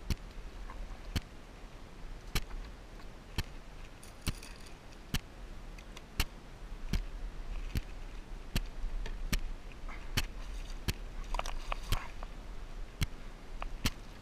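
Kayak being paddled through shallow water: a sharp click about once a second, in time with the paddle strokes, over faint water noise. About three-quarters through there is a brief clatter.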